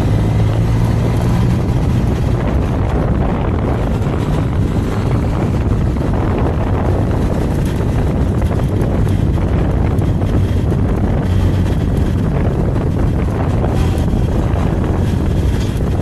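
Benelli TRK 502X motorcycle's parallel-twin engine running steadily as the bike is ridden along, with wind rushing over the microphone.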